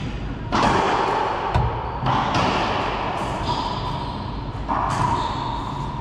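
Racquetball rally: the ball is struck by racquets and smacks off the court's walls and floor, four sharp hits in about four seconds, each ringing and echoing in the enclosed court.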